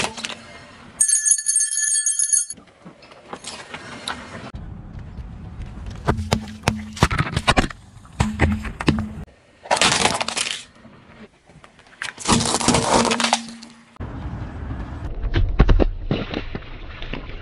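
Car tyre rolling over and crushing objects, a string of short cracking, crunching and bursting sounds broken up by abrupt cuts. There is a brief high squealing tone about a second in, and near the end a water-filled plastic bottle bursts under the tyre.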